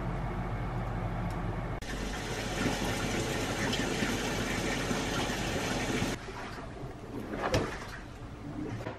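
Panasonic top-loading washing machine running a wash, its motor and the water churning in the drum making a steady noise for about four seconds in the middle. It gives way to a quieter stretch with a couple of light knocks.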